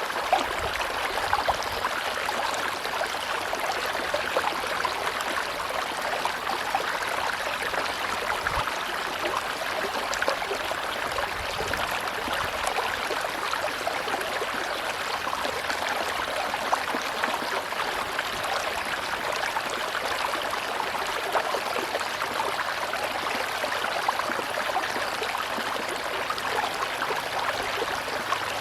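Tropical river water rushing steadily, an even, unbroken flow with occasional small splashes.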